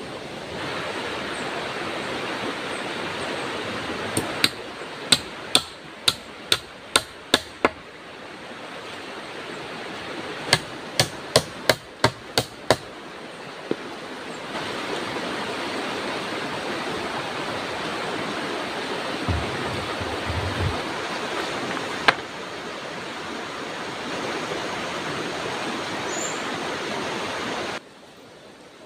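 Hammer blows on wooden poles: a run of about seven sharp strikes at roughly two a second, a short pause, then about six more, with a single knock later, over a steady rushing noise that cuts off near the end.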